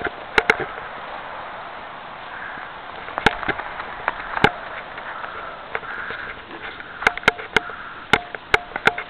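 Footsteps crunching and squeaking in snow, irregular and bunching to about two or three a second near the end, with breathing close to the microphone in between.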